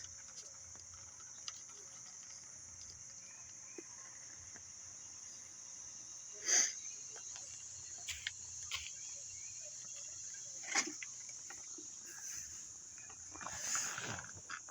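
Kittens at play: a few scattered short knocks and taps, and a brief scuffle near the end, over a steady high-pitched drone in the background.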